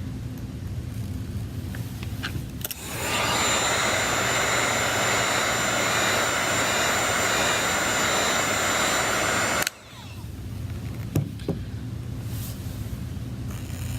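A handheld electric hot-air blower runs for about seven seconds, with a steady fan rush and a fixed high whine. It starts about three seconds in and cuts off suddenly. A low hum runs under it, and two light clicks come near the end.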